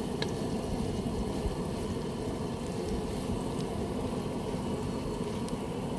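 Garlic and onion frying in butter in a pan on a camp stove: a steady sizzle over the burner's noise, with a few faint clicks.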